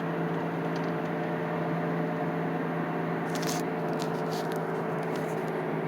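2007 Chevy Impala running, heard from inside the cabin as a steady hum, with a few faint light clicks about three and a half and four and a half seconds in. No heavy clunk stands out.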